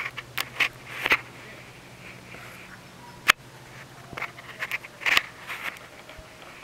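Scattered crackling rustles in two short clusters and one sharp click about halfway through, over a faint steady low hum.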